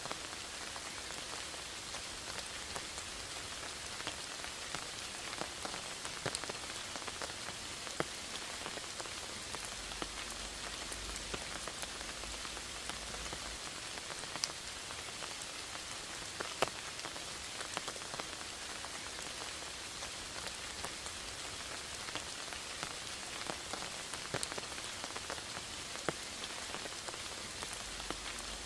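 Steady rain falling in a forest: a dense, even patter with scattered louder single drops striking close by.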